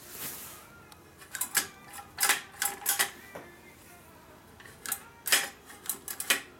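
Two quick runs of sharp clicks and clacks, about a second and a half in and again about five seconds in, from a long-handled weed puller being picked up and worked by hand.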